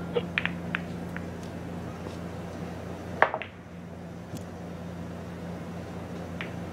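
Pool balls clacking and knocking on a pool table: a few quick clicks in the first second, a sharp crack about three seconds in, and a light tap near the end, over a steady low hum.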